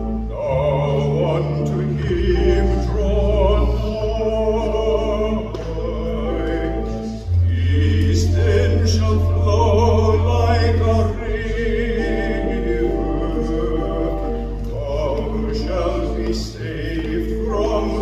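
A baritone singing a slow sacred solo song, with operatic tone, over an accompaniment of long, steadily held low notes that change every few seconds.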